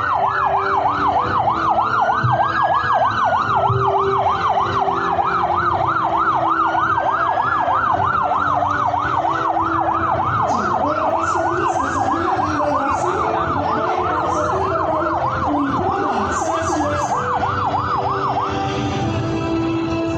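Emergency vehicle sirens sounding together: one on a fast yelp, the other on a slow rising and falling wail. The yelp cuts off near the end.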